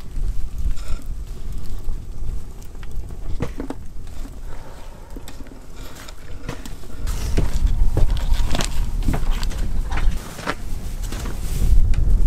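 Wind rumbling on the microphone, heavier in the second half, with irregular knocks of a knife cutting onions on a wooden cutting board.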